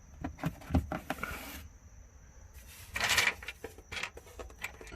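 Plastic trunk trim clips and liner panels being pushed back into place: a series of sharp clicks and knocks, with a short scraping rustle about a second in and a louder scrape of the lining around three seconds in.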